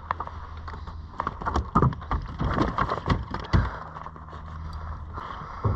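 A rapid, irregular clatter of knocks and taps on a plastic fishing kayak as a freshly landed snapper on the line is swung aboard and handled, dying down after about three and a half seconds.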